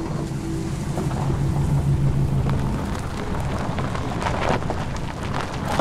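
Old 1950s sedan's engine running as it drives slowly over rough, dry ground. The engine gives a steady low hum that rises a little about two seconds in, with scattered clicks and crackles and one sharper knock near the end.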